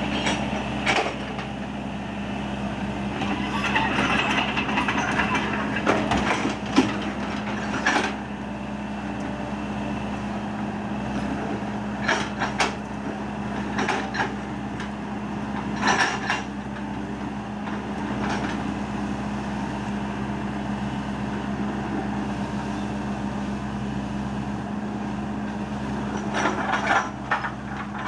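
Excavator's diesel engine running steadily, with a brief sharp knock or clank now and then as it works digging out a ditch.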